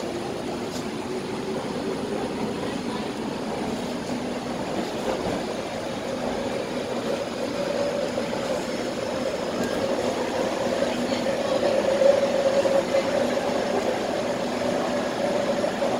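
Interior noise of an MTR C-train running: a steady rumble with a humming motor tone, heard from inside the carriage, growing a little louder in the second half.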